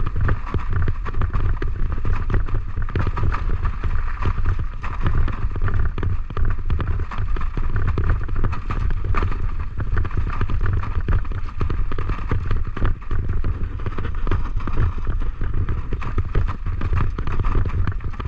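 Continuous rumble and rattling of a wheeled dog-training cart rolling fast over rough ground behind running huskies in harness, with a heavy low buffeting on the microphone.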